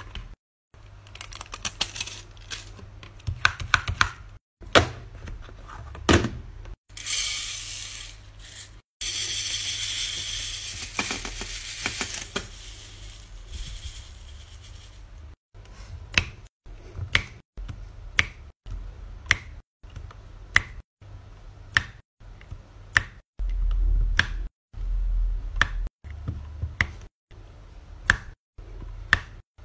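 A few seconds of rattling hiss as square resin drills are shaken in a plastic sorting tray. Then a diamond-painting drill pen taps drills one by one onto the sticky canvas, a small sharp click about every two-thirds of a second.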